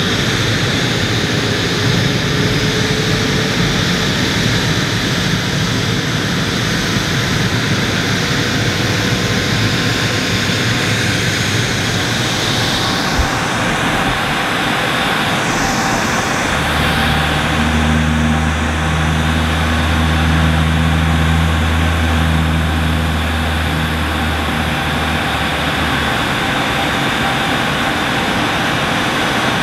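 Bombardier Global 6000 business jet running its Rolls-Royce BR710 turbofans on the ground: a steady jet roar with a faint whine that slowly rises in pitch. Around the middle a low hum joins for about ten seconds and then stops.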